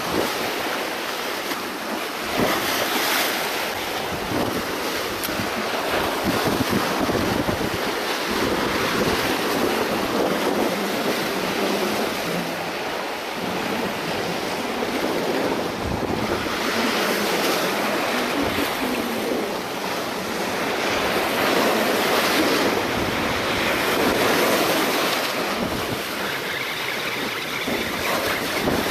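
Sea waves breaking and washing over the boulders of a rocky shoreline, rising and falling in slow surges, with wind buffeting the microphone.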